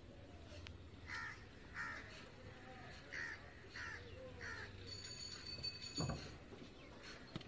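A crow cawing five times in short single calls, with a sharp thump about six seconds in.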